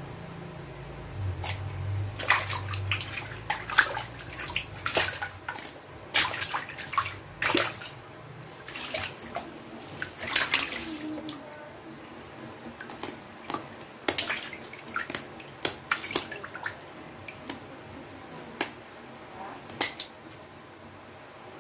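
Irregular wet splashes, scrapes and clicks as raw tilapia are handled and cleaned in water on a wet tiled surface.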